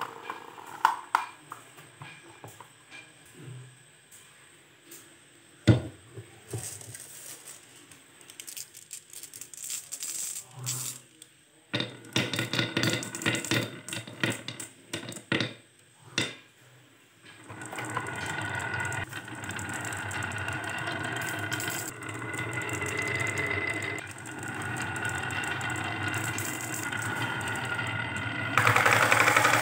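Marbles clicking against each other as a batch is let go, then a long steady rolling rumble as they run down a winding groove cut in a wooden slope. Near the end they hit the plastic bed of a toy dump truck in a loud clatter. Earlier come scattered clicks and knocks of plastic toy parts being handled.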